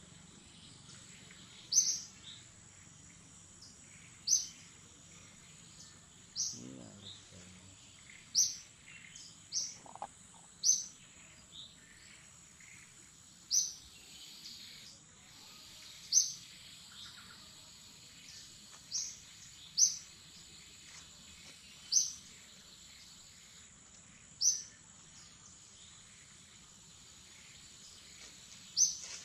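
A bird repeating one short, sharp, high chirp that drops in pitch, over and over every one to three seconds, over a steady high-pitched insect drone.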